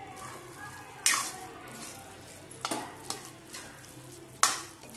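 Metal spoon stirring thick, moist carrot halwa in a kadhai, the mash squelching and the spoon scraping and knocking against the pan three times, about every second and a half.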